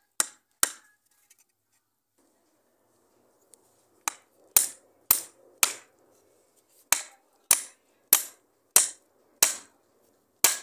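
Hammer driving a nail into a wooden plank on a stake, sharp single blows. Two blows come near the start, then after a pause of about three seconds a run of about ten blows, roughly two a second.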